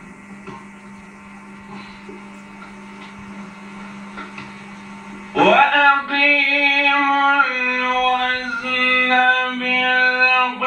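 A steady electrical hum, then about halfway in a man's voice starts chanting melodically into a hand microphone, with long held notes that step from pitch to pitch.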